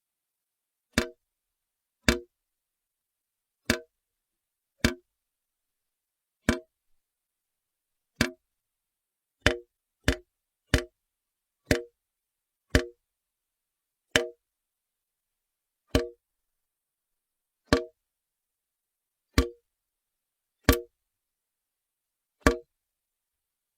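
Water drops falling one at a time into water, each a short pitched plink, at an uneven pace of about one every one to two seconds, with silence between them.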